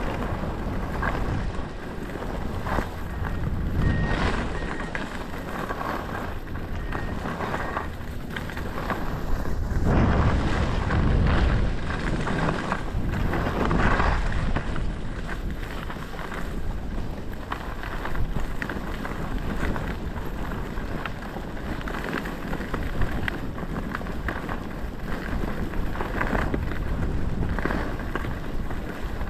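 Wind buffeting the microphone during a ski descent, with skis sliding and scraping over snow in repeated short swishes.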